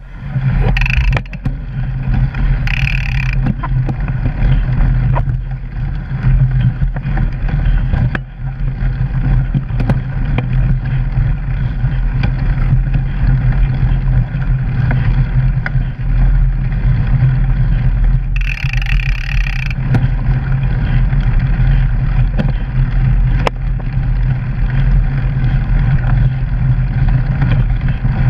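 A mountain bike riding a rough forest trail, heard through a camera mounted on the bike: a steady low rumble of riding noise with scattered knocks from bumps. There is a brief rushing hiss about two-thirds of the way through.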